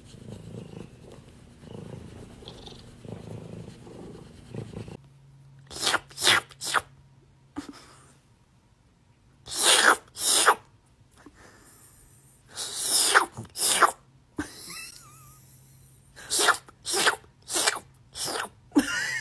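A cat purring with a low steady rumble while being scratched, then a series of short sharp hissing sounds: two pairs, a longer one, and a quicker run of about five near the end.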